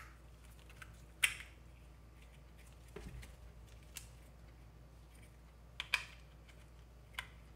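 Small plastic dash cam parts being handled and fitted together: several sharp clicks a second or two apart, a double click near six seconds in, and a softer knock about three seconds in.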